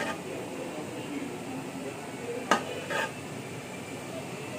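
A metal spoon knocks against a serving plate twice, about half a second apart, a little past halfway.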